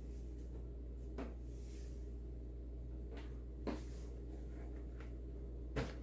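Light plastic clicks and knocks from an RC rally car being handled and turned over in the hands, three in all, the last near the end the loudest, over a steady low hum.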